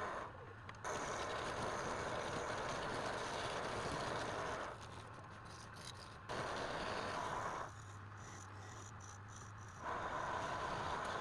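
Woodturning lathe, with work pressed against the spinning wood in three spells of a few seconds each, giving a rushing scrape. A low steady motor hum can be heard in the gaps between the spells.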